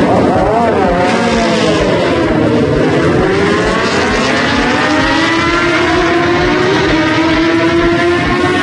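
Two drag-racing motorcycles, one a 2005 (K5) Suzuki GSX-R1000 inline-four, launching off the start line and accelerating hard down the strip. The engine pitch dips over the first couple of seconds, then climbs steadily as they pull away through the gears.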